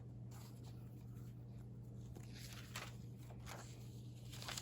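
Faint, scattered rustles and light handling of paper clippings in a recipe binder, over a steady low electrical hum.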